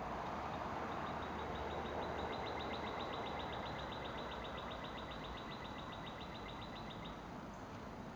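A high-pitched, rapid, even trill that starts about a second in and stops about seven seconds in, over a steady background hiss.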